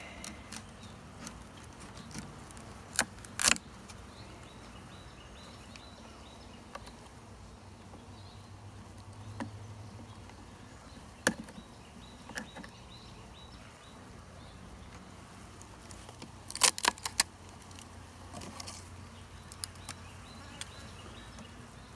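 Honey bees humming steadily in a screened package, with sharp metallic clicks and knocks as a tool works at the package's wooden lid and feeder can. There are a couple of clicks a few seconds in and a quick cluster of them about three quarters of the way through.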